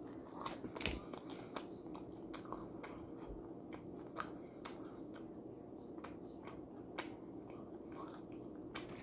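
Faint eating sounds: a person biting into and chewing a hot Hot Pocket, heard as scattered small clicks and mouth smacks over a low steady hum.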